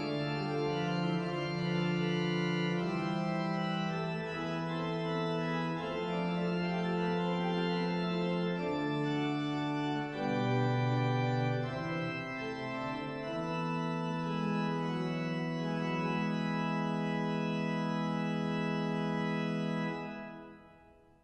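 Pipe organ playing slow, sustained chords over a low pedal bass line. Near the end a final held chord is released and dies away over about a second.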